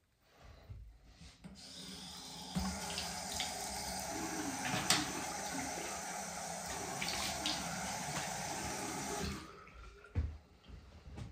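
Water running from a bathroom tap into the sink, building over the first couple of seconds and shut off about nine seconds in, with a few sharp clicks and knocks.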